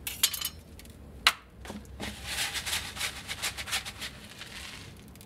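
Salt shaken from a cardboard box onto raw beef in a metal tray: a rapid hiss of falling grains for about two seconds, starting about two seconds in. A couple of sharp knocks come before it, the loudest about a second in.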